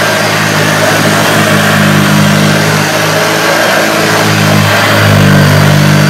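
1976 Hoover Junior upright vacuum cleaner running as it is pushed over a rug: a steady low motor hum over the rush of air and the brush roll on the carpet, swelling and easing slightly as it moves back and forth.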